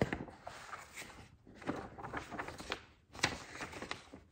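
Paper rustling with scattered soft clicks and knocks of handling: pages being leafed through while scripture references are looked up.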